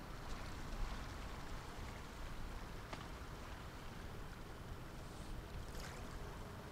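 Faint, steady low rumble of the ferry Orange Osaka's machinery heard from a distance, with a few faint ticks over the top.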